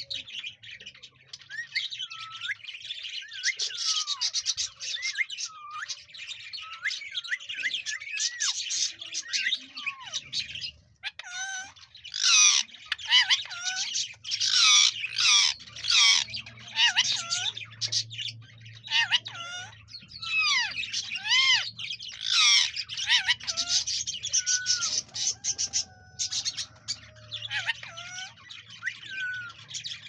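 Female rose-ringed parakeet calling: a steady run of rapid high chirps and squawks with quick up-and-down pitch slides. The calls grow louder and sharper from about a third of the way in until near the end.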